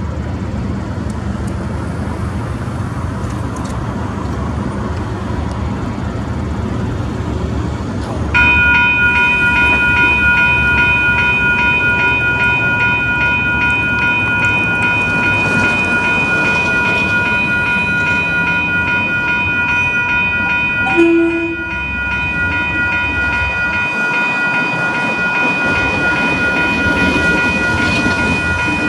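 KiwiRail DFB-class diesel locomotive running as it hauls a container freight train toward the camera. About eight seconds in, a steady high warning sound of several pitches starts and keeps going, with a short lower tone about two-thirds of the way through.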